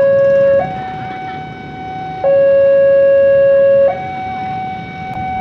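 Railway level-crossing warning alarm sounding two alternating tones, each held about a second and a half, the lower tone louder than the higher, warning that a train is approaching.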